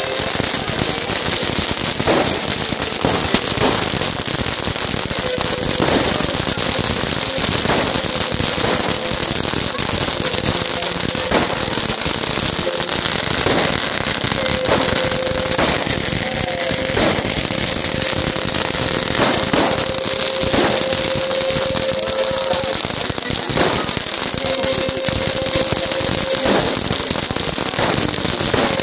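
Dense, continuous crackling of many small firecrackers (miccette) going off on pavement, with sharper single bangs every second or two. A steady tone comes and goes over the crackle.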